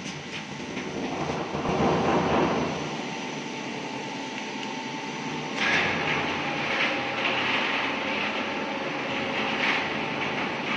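Motorized aluminium rolling shutter running, its slats rattling over the steady hum of the shutter motor. The rattle gets louder and brighter about halfway through.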